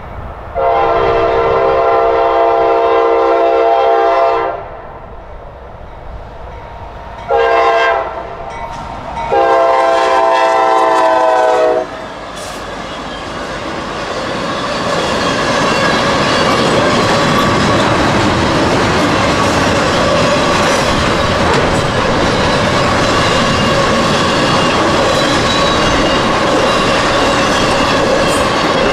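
Diesel locomotive air horn sounding the grade-crossing signal: a long blast, a short one, then another long blast. From about twelve seconds in, a Norfolk Southern intermodal freight train rumbles and clacks through the crossing at speed, growing louder and then holding steady.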